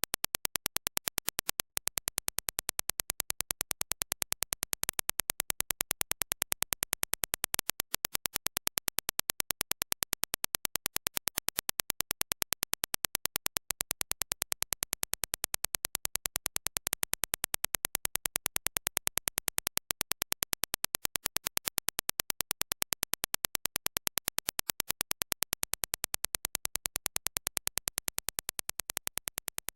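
Music playing, fading out near the end.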